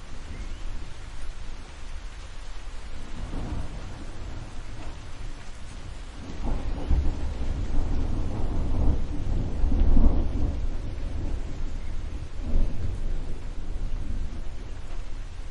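Thunder rumbling over steady rain. A long rolling rumble builds from about six seconds in and is loudest around ten seconds, with shorter rumbles before and after it.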